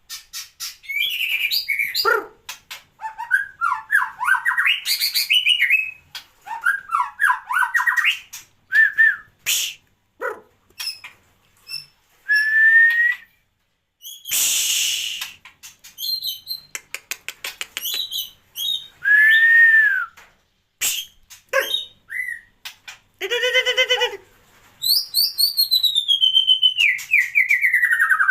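White-rumped shama singing a varied song of quick whistled phrases mixed with harsh rasping notes and a buzzy pulsed call, ending with a long falling whistle near the end.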